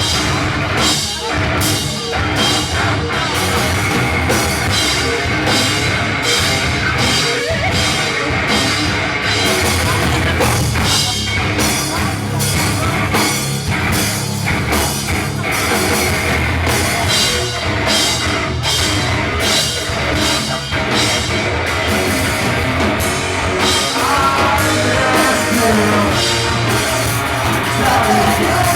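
Live pop-punk band playing: distorted electric guitars, bass and a driving drum kit with steady cymbal hits, with singing in places.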